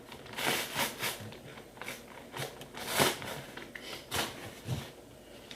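Cardboard and plastic packaging crackling and rustling in short, uneven bursts as a sealed box is cut and opened.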